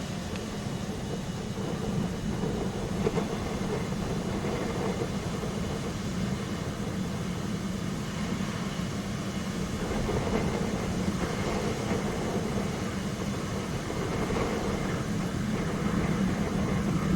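Steady rumble of a vehicle driving, heard from inside the cab: engine hum and road noise, swelling slightly about ten seconds in and again near the end.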